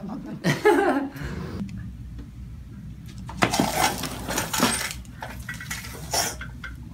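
Joints cracking during a chiropractic adjustment: several short, sharp pops. A brief vocal exclamation comes in the first second and a half.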